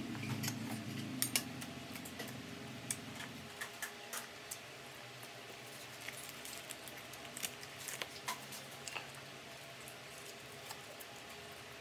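Close-up eating sounds: chewing with scattered small clicks and taps, like cutlery on a plate. A low background sound, music carried over, fades out about three and a half seconds in.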